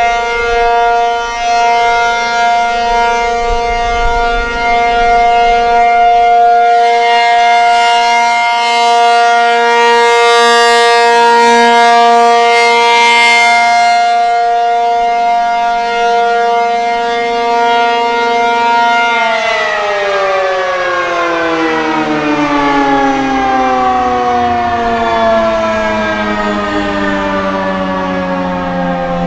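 ACA P-50 tornado siren sounding a steady alert tone, then shut off about two-thirds of the way through and winding down, its pitch falling slowly and steadily.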